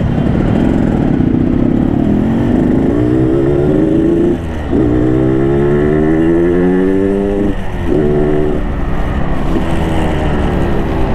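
Yamaha RX-King's two-stroke single-cylinder engine, on its stock exhaust, accelerating hard through the gears. Its pitch climbs, drops briefly at a shift about four and a half seconds in, climbs again, and shifts once more near the eight-second mark.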